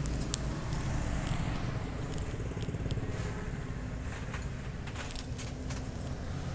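A steady low hum with a few faint, scattered clicks and crackles.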